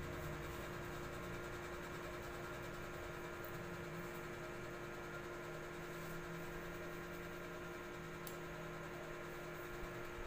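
Faint, steady electrical hum of room tone with a constant low tone, and a single faint tick about eight seconds in.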